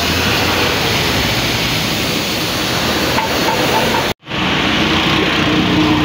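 Steady, loud mechanical running noise with a hiss, cutting out for an instant about four seconds in, then carrying on.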